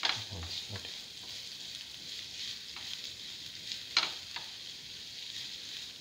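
Sliced shallots and ginger sizzling in hot oil in a pan as they are stirred with a spatula, which taps and scrapes the pan a few times. The sharpest taps come right at the start and about four seconds in.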